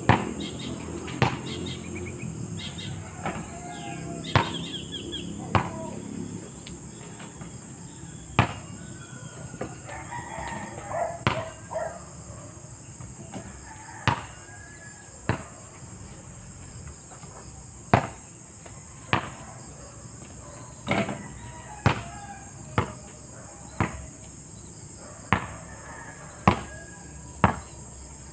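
Basketball bouncing on an asphalt court: about twenty sharp single bounces, mostly about a second apart, the loudest sounds throughout. Under them runs a steady high insect buzz, and a rooster crows in the background.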